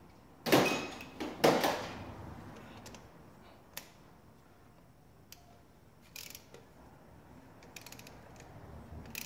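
Two loud, short scraping handling sounds in the engine bay about half a second and a second and a half in. Then a hand ratchet clicks in short runs near the end as fasteners are run down snug.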